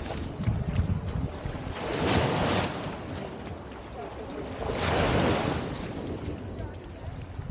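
Small waves breaking and washing up on a sandy shore, surging twice about three seconds apart, with wind buffeting the microphone.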